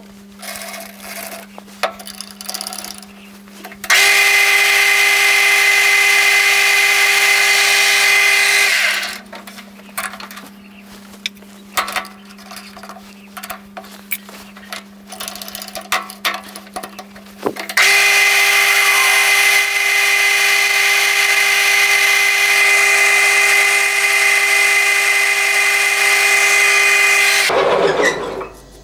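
Metal lathe drilling a 9 mm hole into the centre of a spinning metal bar, with the drill fed from the tailstock. It makes a loud, steady machining whine with a high ringing tone. It runs for about five seconds, stops for a quieter stretch with a few clicks while the centre drill is swapped for a twist drill, then runs again for about ten seconds and cuts off near the end.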